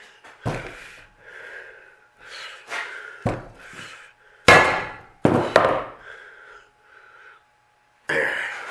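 A heavy steel rear trailing arm from a VW Baja Bug being handled on a wooden workbench, knocking and thudding several times as it is set down and moved, the loudest knock about four and a half seconds in.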